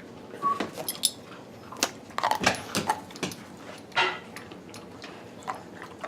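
Dogs crunching and chewing hard Milk-Bone dog biscuits: irregular sharp crunches and cracks, a few of them louder.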